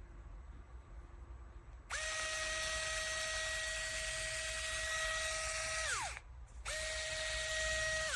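Mini electric precision drill running with a steady high whine, switched off and spinning down with falling pitch. It then runs again briefly and spins down a second time near the end.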